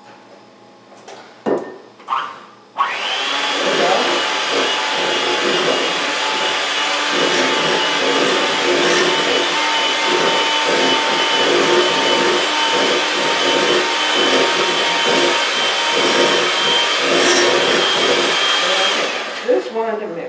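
Electric hand mixer running steadily with a high motor whine, its beaters churning a yeast batter in a glass bowl. It switches on about three seconds in, after a few handling clicks, and stops near the end.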